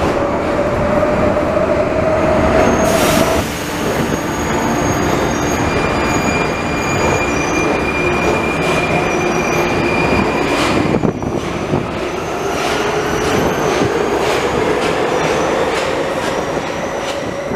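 Prague Metro 81-71M train in motion. It is first heard from inside a car, its motor whine rising as it gathers speed. After a break about three seconds in, it is heard from the platform as it pulls out, with wheels rumbling and squealing and the motor whine rising again as it speeds up.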